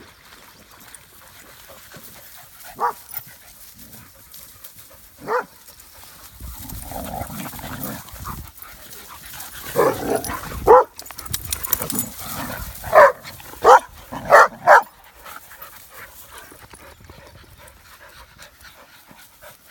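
Dogs barking. Two single barks come a few seconds apart, then close rustling and panting, then a quick run of about five barks before it settles.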